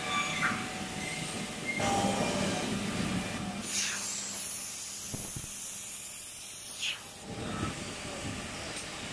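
Woodworking production-line machinery and powered roller conveyors running, a steady mechanical rumble with a low hum. A high hiss comes in about three and a half seconds in and stops about three seconds later, with a couple of short knocks in between.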